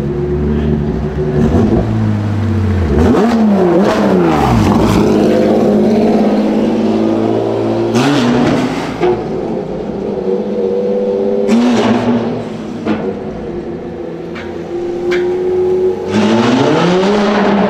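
Porsche 992 GT3 RS's naturally aspirated 4.0-litre flat-six through a straight-piped Soul exhaust, running at low speed and revved hard about four times, each rev sweeping up and falling back, the last one climbing near the end. The revs echo off the underpass walls.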